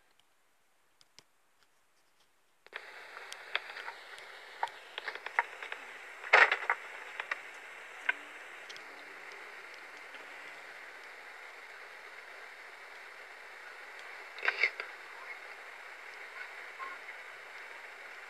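Near silence, then a little under three seconds in a thin, steady static hiss begins, scattered with crackles and clicks. Two louder clusters of clicks come about six and fourteen seconds in.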